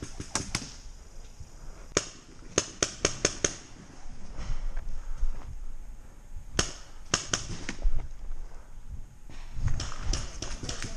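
Paintball markers firing: sharp pops in quick volleys, about five in a row two to three and a half seconds in, a few more about seven seconds in, and another run near the end, with rustling movement through leaf litter between.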